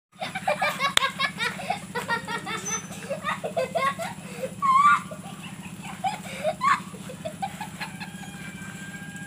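Children laughing hard in quick repeated peals, over a steady low hum.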